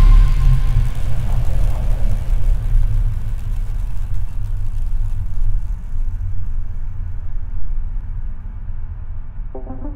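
A loud, steady low rumble with a hiss above it that slowly fades away. Music with a rising pattern starts just before the end.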